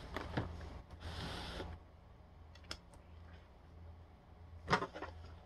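Quiet eating and handling sounds: a soft rustle of food packaging in the first second or two, a few light clicks, and one short mouth sound near the end.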